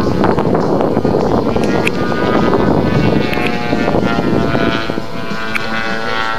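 Radio-controlled model airplane engine buzzing steadily, its tone coming through more clearly from about halfway in as a low rumble fades.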